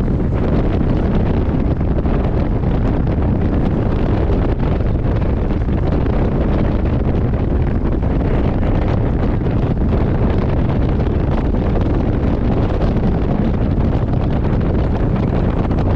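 Strong wind buffeting the microphone on the bow of a fast ferry running at speed: a steady, loud rush heaviest in the low end, with the boat's running noise underneath.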